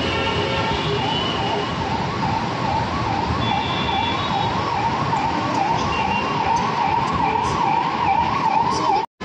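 An emergency vehicle siren wailing, its pitch swinging up and down two or three times a second over steady road traffic noise, with a few short horn toots. The sound cuts out suddenly for a moment near the end.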